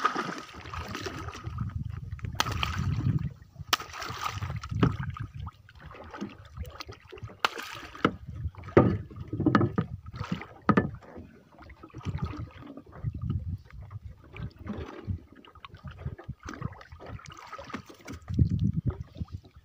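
Sea water splashing and sloshing against the side of a small wooden fishing boat, with scattered sharp knocks on the hull, as a fish is hauled up alongside by hand and lifted aboard.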